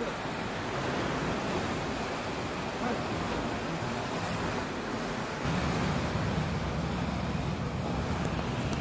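Steady rushing of sea surf washing against rocks, with wind on the microphone. The low rumble grows stronger about five and a half seconds in.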